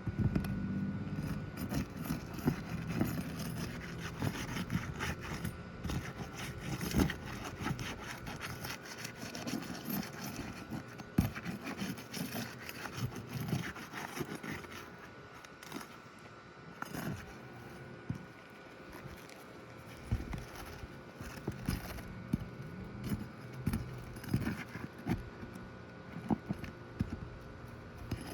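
Roof shingles being worked loose and lifted by hand, with irregular scraping, rubbing and crackling as their seal is broken. A faint steady hum runs underneath.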